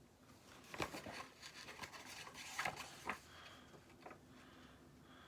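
Paper rustling as a storybook page is turned and handled, with a few sharp clicks over the first three seconds, then quieter.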